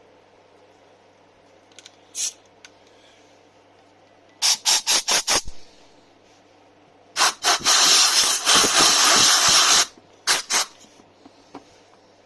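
A pressurised jet hissing in bursts: a quick run of five short blasts, then a couple more and one long blast of about two and a half seconds, and two short ones near the end.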